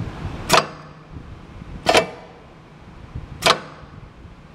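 Orii AFC03FBBP roll feeder cycling. It makes three sharp clacks, evenly spaced about a second and a half apart, each with a short decaying tail, over a low steady hum.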